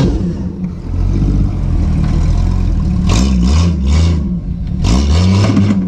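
Off-road vehicle engine revving, its pitch rising and falling twice, with short bursts of hissy noise riding over it at the peaks.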